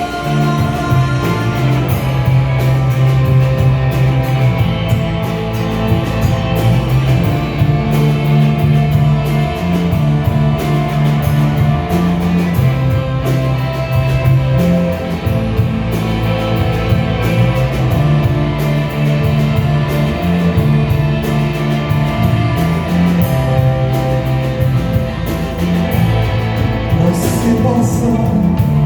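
Rock music: an instrumental passage with guitars, a bass line and drums keeping a steady beat.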